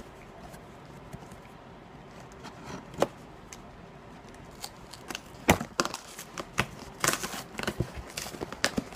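A cardboard package and its packing being worked open by hand: scattered sharp clicks and crinkling, busier from about five seconds in.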